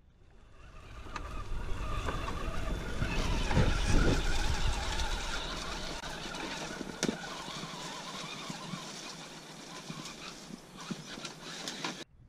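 Axial SCX10 radio-controlled crawler's electric motor and gears whining as it climbs through ivy and dead leaves, with rustling and sharp clicks of twigs under its tyres; it grows louder for the first few seconds, then fades as the truck moves away.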